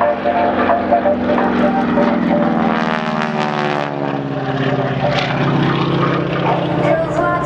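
Stearman biplane's radial engine and propeller running hard during aerobatics, a steady drone whose pitch falls about three seconds in.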